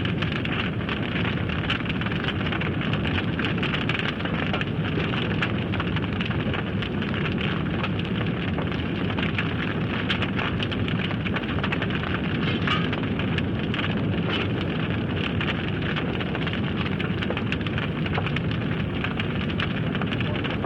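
Large fire roaring steadily, with dense crackling and many small pops.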